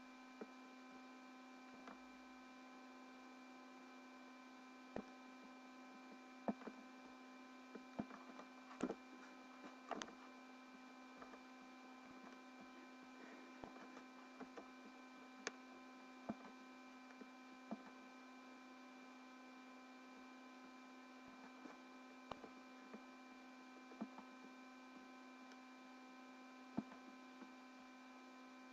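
Near silence: a faint steady electrical hum made of several fixed tones, with scattered faint clicks.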